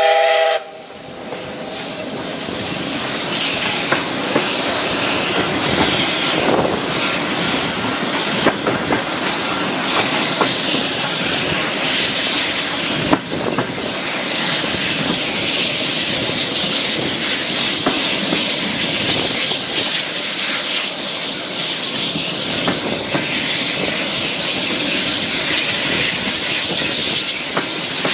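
The tail of a steam locomotive's whistle cuts off about half a second in. A steady rushing noise of the steam-hauled passenger train running along the rails follows, with a few sharp wheel clicks.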